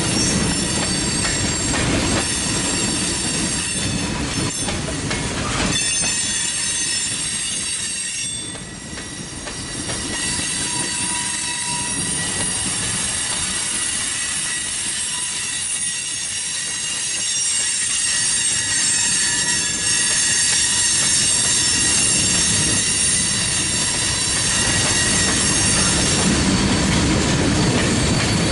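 Loaded coke hopper cars rolling past, their steel wheels rumbling on the rails, with a steady high-pitched wheel squeal over the rumble.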